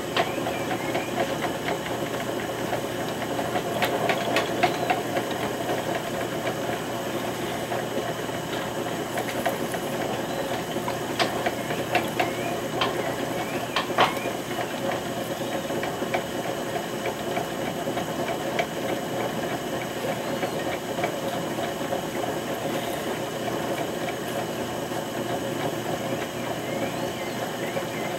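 Electric potter's wheel motor running steadily as a vase is thrown, with a few sharp clicks in the middle.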